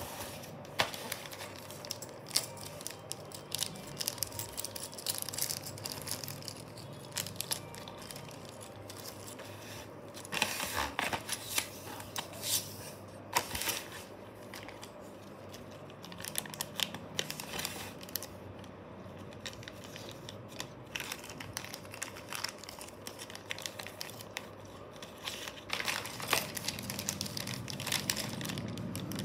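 Clear plastic zip-lock bags of LEGO parts crinkling and rustling as they are handled, in irregular sharp crackles, with a louder, busier stretch about a third of the way in.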